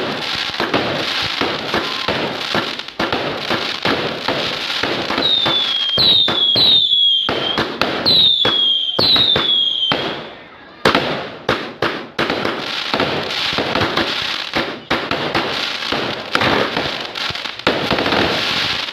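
Fireworks going off in rapid succession: dense crackling and popping of bursts, with a run of short falling whistles between about five and ten seconds in. After a brief lull there is a sharp bang about eleven seconds in, then more rapid popping.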